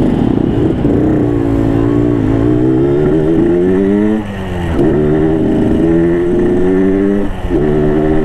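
Yamaha RX-King's 135 cc two-stroke single engine on its stock exhaust, in a throaty 'ngorok' tune, pulling the bike along. Its pitch rises for about three seconds, drops sharply at a gear change about four seconds in, then holds steady with a short dip near the end.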